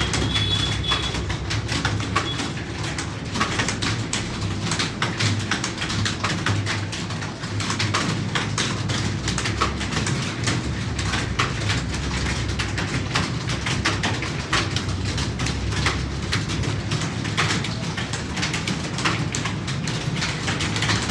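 Computer keyboard being typed on continuously, a rapid, irregular stream of key clicks over a steady low hum.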